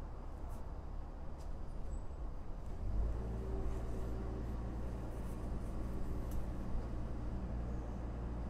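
Low, steady engine rumble of heavy construction machinery working nearby, heard through the house, growing fuller and louder about three seconds in.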